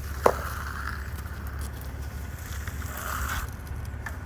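Steady low rumble of job-site machinery with one sharp knock about a third of a second in.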